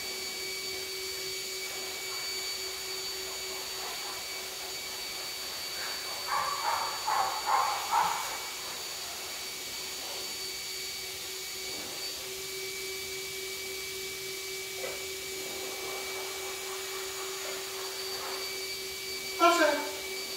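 Steady hum of an appliance motor running in the room, with thin high tones over it. A few short pitched sounds break in about six to eight seconds in, and a falling one near the end.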